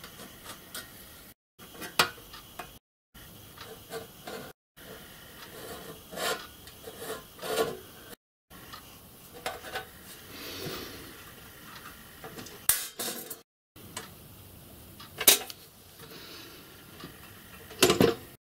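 Metal marking-out tools (dividers, calipers) clinking and tapping as they are handled and set down on a metal sole plate, with a scraping rub about ten seconds in and the sharpest knocks near the end.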